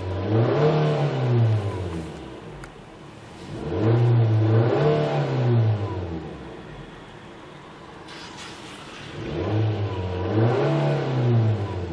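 Nissan Tiida's petrol engine idling and revved three times while stationary, each rev rising and then falling back to idle over about two seconds.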